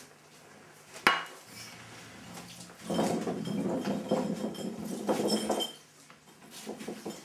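A sharp bang about a second in, then a few seconds of clattering and clinking of glass bottles and dishes knocked off a table in a scuffle.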